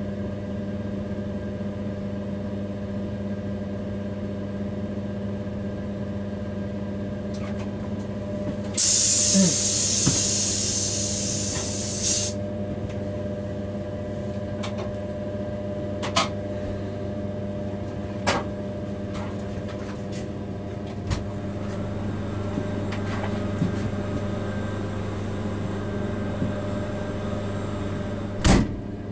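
Steady hum inside a freight locomotive's cab as the train runs. About nine seconds in, a loud hiss lasts roughly three seconds. Scattered sharp clicks and knocks follow, the loudest near the end.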